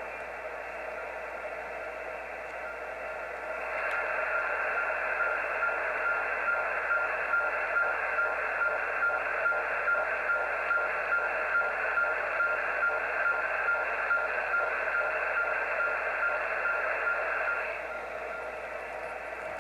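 HF radio receiver hiss heard through a narrow single-sideband passband. About four seconds in, a strange pulsing signal with a rapidly chopped steady tone comes up over the static. It stops about four seconds before the end, leaving the hiss.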